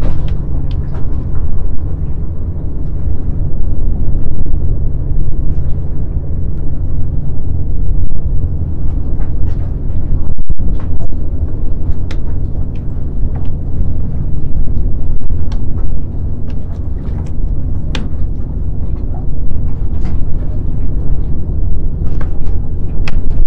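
Wind buffeting the microphone: a loud, steady low rumble, with scattered faint clicks.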